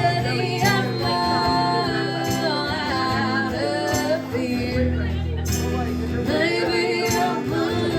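Live band playing a country-style original song, with a woman singing a wavering melody over steady guitar and bass.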